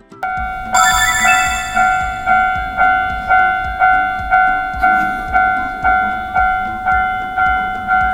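Japanese railroad crossing warning bell ringing steadily at about two dings a second, with a low rumble underneath.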